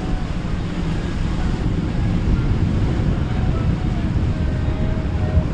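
Steady wind noise on the microphone mixed with the low rumble of boat engines and surf, with faint high wavering tones above it.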